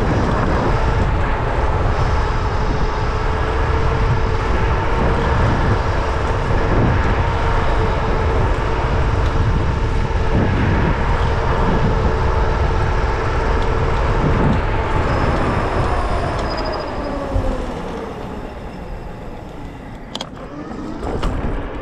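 Varla Pegasus electric scooter riding fast: heavy wind on the microphone and tyre noise, with a steady hub-motor whine. About fifteen seconds in, the whine falls in pitch and the wind eases as the scooter slows, and a couple of sharp knocks come near the end.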